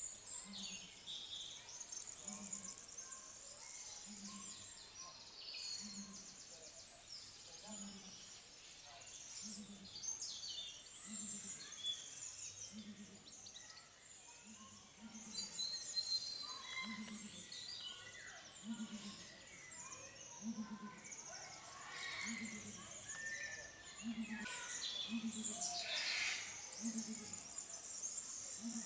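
Small birds chirping and singing in a busy chorus of short calls and trills, with a soft low pulse repeating about once a second underneath.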